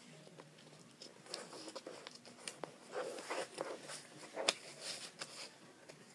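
A sheet of paper being folded and creased by hand: irregular rustles and crackles, the sharpest about four and a half seconds in.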